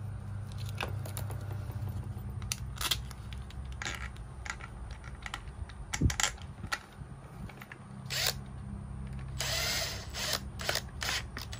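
Plastic clicks and knocks as a recoil starter housing is pushed and seated onto a small two-stroke brush cutter engine, with a short whir of a small electric motor near the end. A low steady hum runs underneath.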